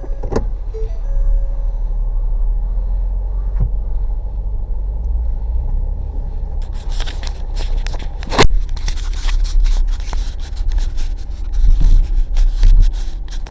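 Low steady rumble of a car being driven, heard from inside the cabin. From about seven seconds in come rapid clicks and rattles, with one sharp knock at about eight and a half seconds.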